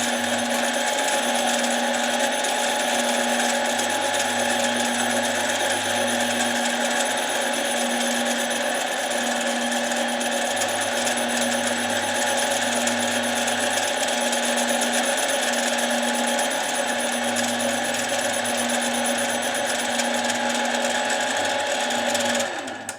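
Harbor Freight mini lathe running steadily while facing the scored steel end plate of an impact wrench to true it up; the motor cuts off shortly before the end.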